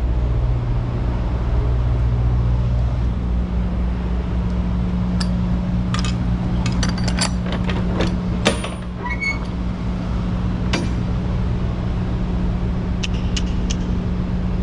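Semi-trailer rear door hardware being worked open, metal latches and lock bars clinking and clanking, with one sharp clank about eight seconds in the loudest. A diesel engine idles steadily underneath, its hum changing pitch about three seconds in.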